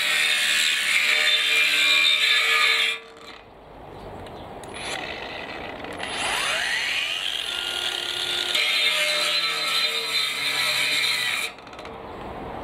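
18 V cordless brushless angle grinder cutting, then cutting out abruptly about three seconds in. Around six seconds it spins back up with a rising whine, cuts again and stops abruptly again near the end. The cut-outs are typical of it struggling on a small 1.5 amp-hour battery.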